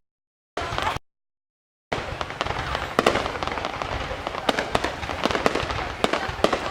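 Fireworks going off: many sharp cracks and bangs in quick succession. The sound cuts out completely twice in the first two seconds.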